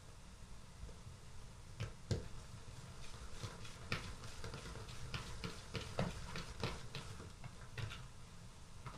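Hands rolling pieces of yeast dough into balls on an oiled wooden tabletop: faint, irregular soft taps and clicks of dough and fingers against the table, starting about two seconds in, over a low steady hum.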